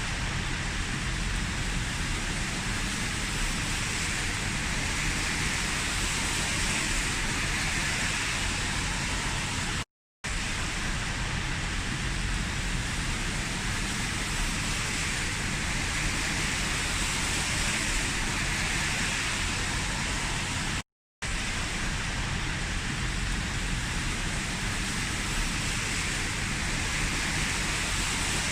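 Heavy rain falling steadily as a dense, even hiss. It cuts out completely for a split second twice.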